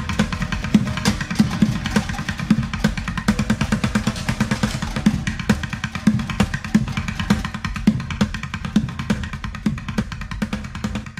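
Background music with a drum-driven steady beat, getting quieter toward the end.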